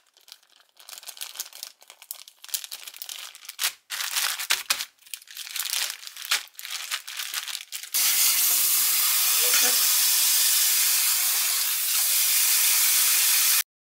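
Plastic zip-lock bag crinkling in irregular bursts as hands pack pieces of raw beef into it. About eight seconds in, a kitchen tap runs steadily into a bowl of meat in the sink, then cuts off suddenly near the end.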